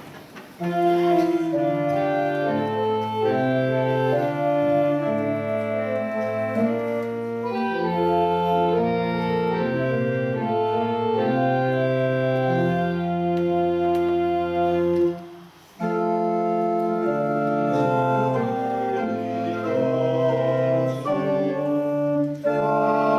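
Church organ playing slow sustained chords, with deep bass notes joining for several seconds in the middle; the music pauses briefly about fifteen seconds in, then goes on.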